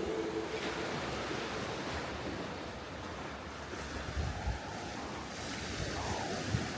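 Sea waves washing in, a steady rush of surf with wind buffeting the microphone.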